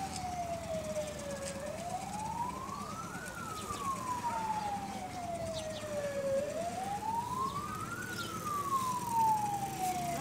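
A vehicle siren on a slow wail: one tone rising quickly in pitch, then falling slowly, repeating about every five seconds, with the rises about 2 s and 7 s in.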